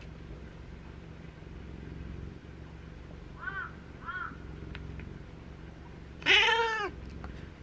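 Domestic cat meowing: two short, quieter meows about half a second apart, then one loud, longer meow near the end.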